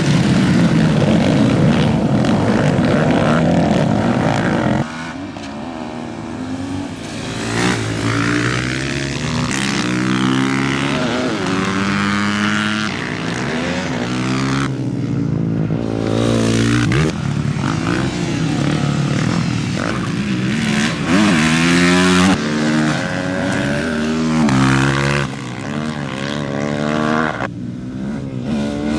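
Supermoto race motorcycles, several at once, with engines revving up and dropping back again and again as they shift through the gears. A dense, loud stretch fills the first five seconds.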